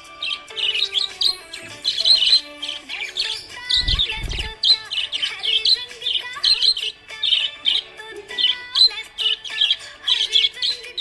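Budgerigars chirping and warbling in quick, continuous bursts, over steady background music, with a low thump about four seconds in.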